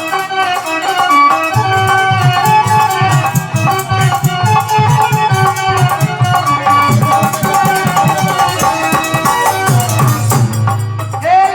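Instrumental interlude of folk devotional bhajan music: a held melody line over hand drum and continuous rattling percussion.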